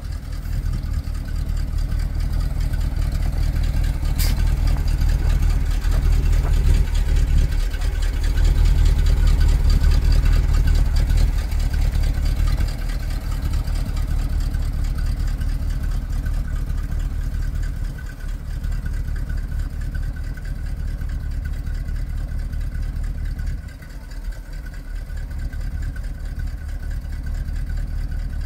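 1982 GMC C6500 grain truck's engine running steadily while the hydraulic hoist lowers the grain box. It is louder for the first ten seconds or so, with a single sharp click about four seconds in.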